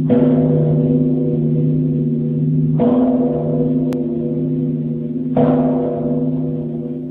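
A deep, ringing metal percussion instrument struck three times, about two and a half seconds apart, as soundtrack music; each stroke leaves a low, steady ringing of several tones that slowly fades.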